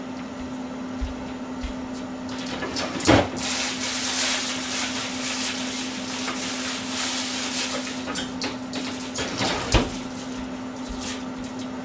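Kitchen noises at the stove: a steady low hum throughout, a sharp knock about three seconds in followed by a few seconds of hiss, and another knock near the end.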